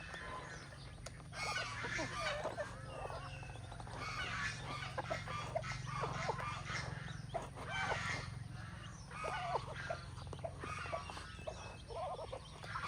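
A hen and her chicks calling, many short overlapping clucks and higher chirps one after another.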